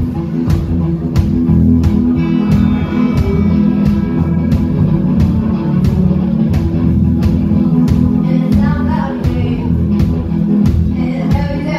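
Live rock band playing loudly: a drum kit keeps a steady beat with cymbal hits under sustained instrument chords, and a singing voice comes in twice in the second half.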